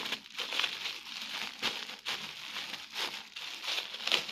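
Clear plastic wrapping crinkling as hands pull at it and unwrap it, in an irregular run of crackles.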